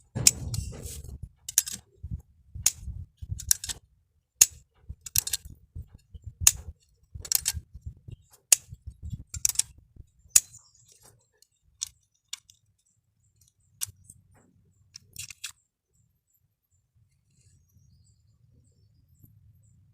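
Sharp clicks and clinks of small plastic and metal parts of a burnt miniature circuit breaker being handled, about one a second with some rubbing under them, stopping about fifteen seconds in.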